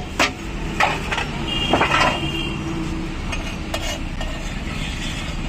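Steel plates clanking and scraping against a large flat tawa griddle as a heap of pulao rice is pushed and spread, with sharp metal clinks about once a second and a brief metallic ring about two seconds in. A steady low hum runs underneath.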